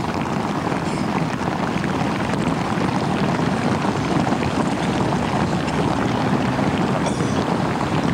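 Steady rushing wind noise on the camcorder microphone, growing slightly louder over the first few seconds.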